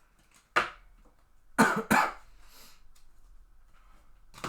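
A man coughing: one cough about half a second in, then two quick coughs together about a second later.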